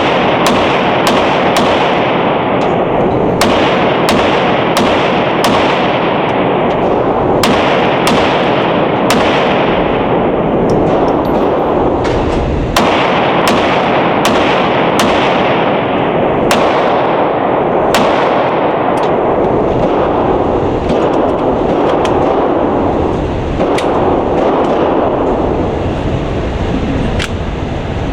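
9mm Glock 19 Gen 5 pistol fired shot after shot, about one shot a second with short pauses, over a loud steady background noise. The pistol cycles without a jam.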